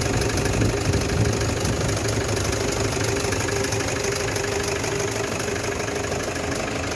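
Toyota Hilux engine idling steadily.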